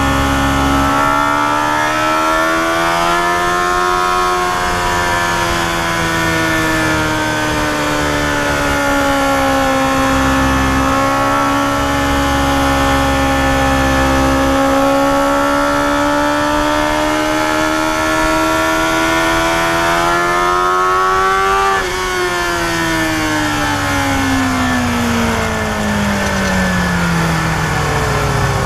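Yamaha FZR250R's inline-four engine heard from the rider's seat, running on through the bends with its pitch rising and falling gently. About three quarters of the way through, the throttle closes and the pitch falls away steadily as the bike slows, with wind noise on the microphone.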